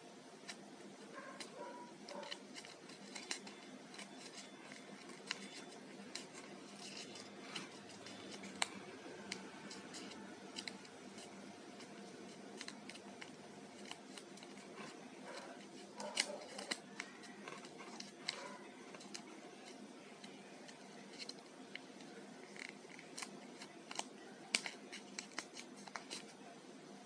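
Paper crinkling and crackling as a small sheet is folded and creased by hand into an origami module, in irregular sharp crackles with small clusters every few seconds. A faint steady hum lies underneath.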